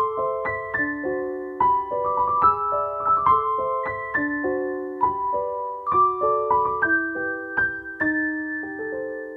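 Background music: a gentle piano tune of single struck notes over soft chords, fading out near the end.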